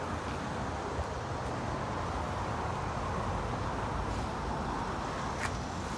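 Steady outdoor background noise: a low rumble and hiss with no distinct events, and a faint click about five and a half seconds in.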